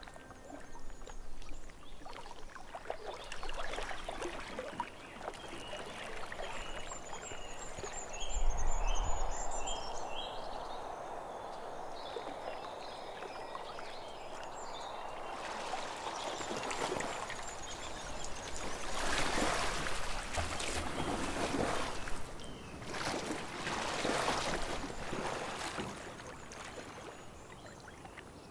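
Shallow lake water sloshing and splashing as hands and a released trout move in it, with louder splashes through the second half. A few short high chirps sound about a quarter of the way in.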